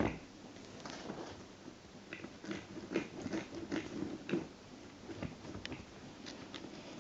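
A pet gnawing and chewing: irregular small crunches and clicks.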